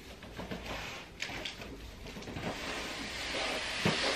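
Tall cardboard flat-pack furniture box being walked and dragged across a wooden floor: scattered knocks and scuffs at first, then a longer scraping from about halfway, with a single knock near the end.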